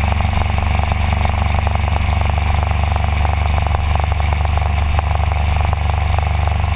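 Motorbike riding at a steady cruising speed: the engine runs evenly under a constant deep rumble and rush of wind on the mounted camera.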